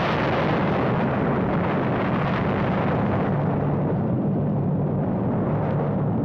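Powder snow avalanche coming down a mountain face: a loud, steady rumble and rush of noise, its hiss thinning toward the end.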